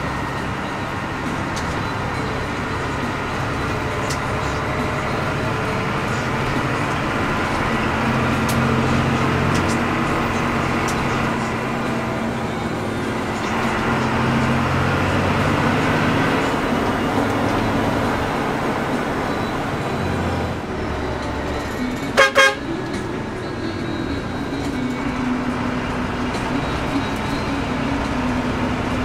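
Steady drone of a Hino AK front-engine bus's diesel engine and road noise, its pitch shifting now and then. About two-thirds of the way through, a vehicle horn gives a short, loud double toot.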